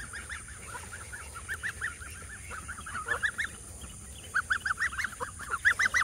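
Several domestic geese honking in a quick run of short calls, growing louder and busier about four seconds in.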